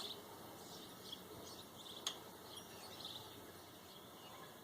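Faint outdoor ambience with short, high bird chirps repeating every second or so, and one sharp click about two seconds in.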